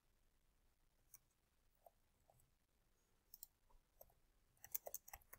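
Faint computer keyboard keystrokes, a few scattered ones and then a quicker run near the end, against near silence.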